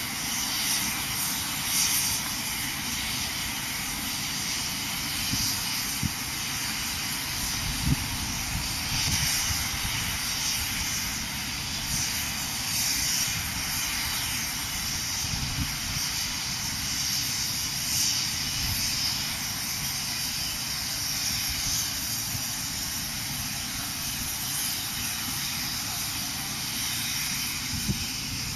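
Steam locomotive C61 2 working slowly under steam: a steady hiss of steam with irregular, unhurried exhaust chuffs, a low rumble, and a few sharper knocks from the running gear.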